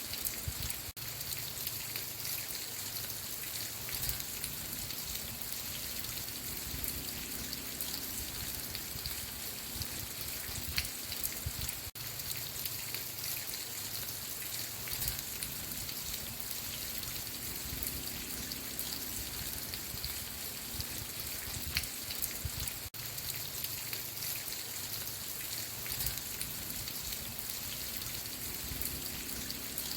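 Steady rain falling and pattering on a surface, an even hiss with a low rumble beneath. It cuts out for an instant about every eleven seconds.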